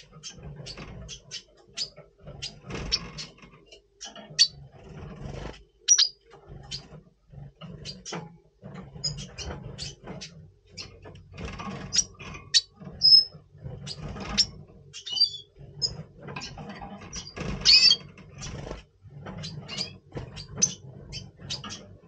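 Double pastel red siskin calling in breeding condition: many short, high chirps and twitters in irregular runs. Knocks and rustles of the bird hopping and fluttering in its breeding box come in between.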